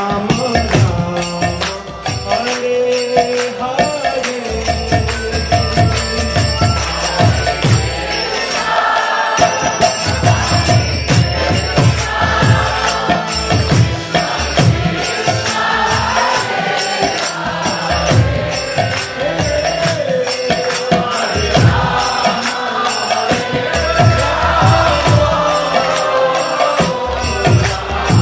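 Devotional kirtan music: voices chanting a mantra over a steady beat of small hand cymbals and drum.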